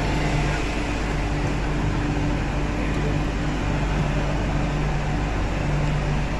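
Underground MTR station platform ambience: a steady hum from ventilation with a low drone that fades in and out, under the murmur of passengers walking past.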